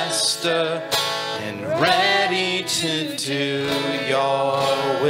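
Live worship music: an acoustic guitar playing with a singer's sustained vocal that slides in pitch in the middle of the phrase.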